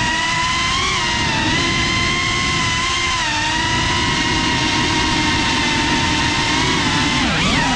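GEPRC Cinelog 35 cinewhoop FPV drone's brushless motors whining as it flies, the pitch wavering gently and then dipping and climbing sharply near the end with a quick throttle change, over a low rushing noise.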